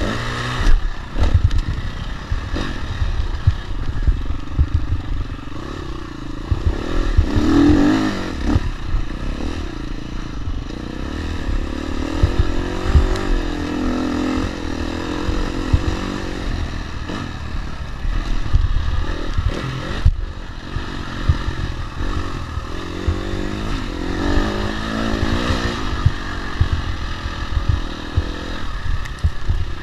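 Dirt bike engine under way, revving up and down as the rider works the throttle and gears, heard close from the rider's camera, with rattles and knocks from the bike over the rough track.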